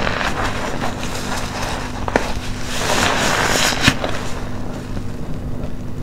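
A wet, soapy sponge squeezed by hand: squelching and crackling foam that swells and eases, with a sharp click about two seconds in and another near four.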